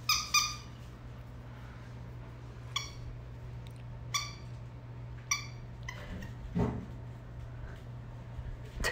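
Pembroke Welsh corgi puppy giving short high-pitched yips: one a little longer right at the start, then three brief ones spaced a little over a second apart.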